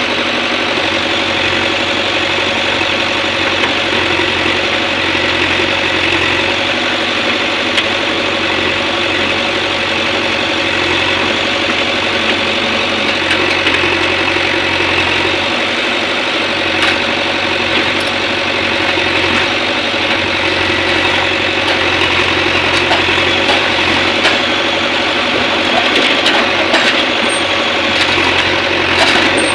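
Diesel engine of a backhoe loader or tractor running steadily at an even speed, with a few sharp clicks near the end.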